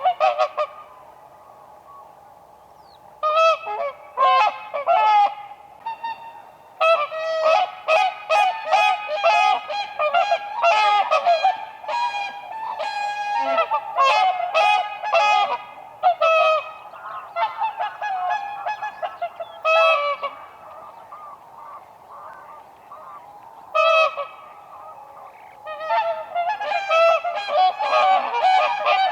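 Whooper swans calling, loud bugling honks from several birds overlapping in bursts, with short lulls between bouts.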